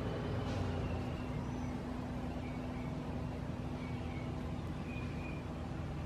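Steady low outdoor rumble with a faint steady hum. Faint, short, high bird chirps come through a few times, mostly in the second half.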